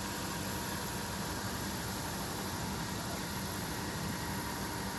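Steady low diesel engine drone of a river towboat pushing a tow of barges, under a steady hiss.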